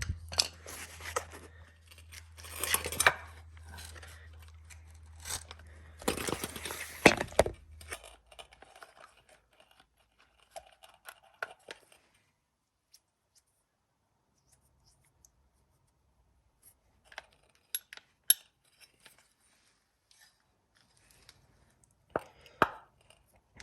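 Aerosol can of penetrating lubricant sprayed in three short hissing bursts into a seized starter dog (pawl) of a recoil starter, followed by scattered faint clicks of small metal parts being handled.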